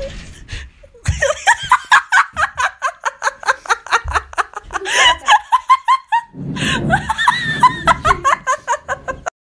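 Hard, high-pitched laughter in fast repeated pulses, several a second, with a short break about six seconds in; it cuts off abruptly near the end.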